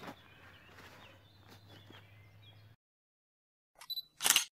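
Faint outdoor background with a steady low hum, light rustling and a few faint bird chirps, which cuts off to dead silence over halfway through. Near the end come two short, loud noise bursts, the second louder.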